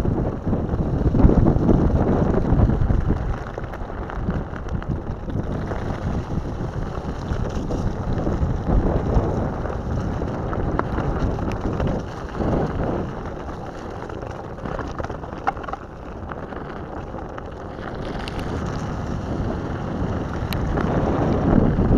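Rolling rumble of an electric off-road skateboard's pneumatic all-terrain tyres over wet dirt and gravel, with wind buffeting the board-mounted camera's microphone. It is louder over the first few seconds and again near the end.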